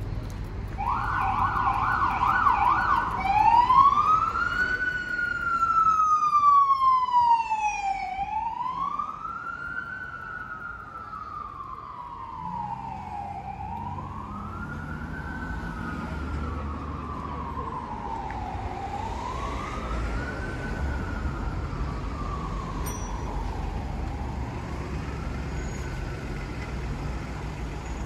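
Emergency vehicle siren, starting with a brief rapid yelp, then switching to a slow wail that rises and falls about every five seconds. It is loudest a few seconds in as it passes and fades as it moves away.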